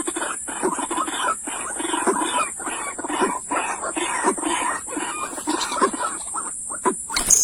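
Birds calling in quick succession: many short, repeated calls over a steady high-pitched buzz. A sudden louder noise comes near the end.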